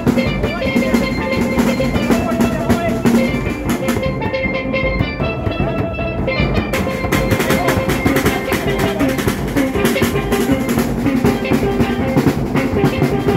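Live street band: a bass drum and a snare drum beat out a steady, fast rhythm under a pitched melody line.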